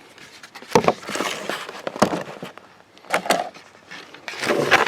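Knocks and rustling of objects being handled, coming in short bursts: one near the start, a run about a second in, another past the middle and a louder one near the end.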